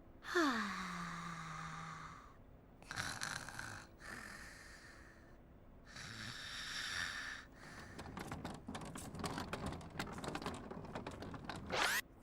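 A sleeping Teletubby snoring: three breathy snores a few seconds apart, the first with a whistle that falls in pitch. They are followed by a dense run of scratchy clicks in the last few seconds.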